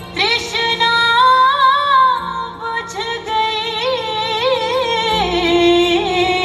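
Song with a woman singing a slow, drawn-out, ornamented melody with vibrato over a sustained backing.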